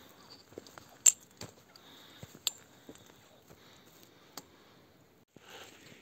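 Footsteps on a gravel and dirt mountain trail, a steady run of small steps and stone scuffs with a few sharp clicks, the loudest about a second in and another about two and a half seconds in.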